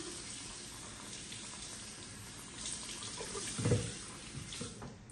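Tap water running into a wash basin, with a soft thump about three-quarters of the way through. The water stops near the end.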